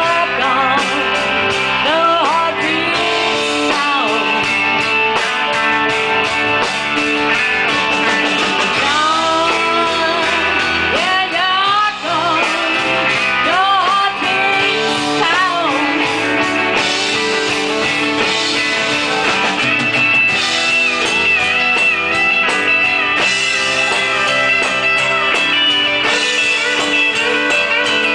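Live rock band playing an instrumental break, with an electric guitar lead bending notes up and down over the band.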